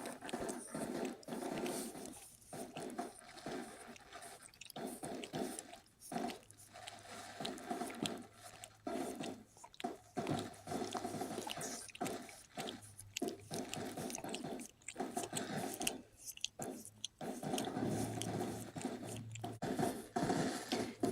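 A dog chewing and gnawing, with irregular, uneven bites.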